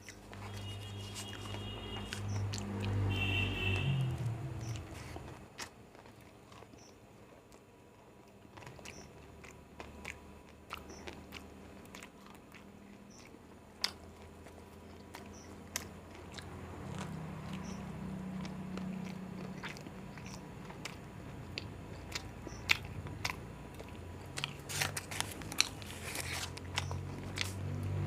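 Close-miked eating of an egg roll: bites and chewing with wet mouth clicks and smacks, coming irregularly and getting louder and busier towards the end.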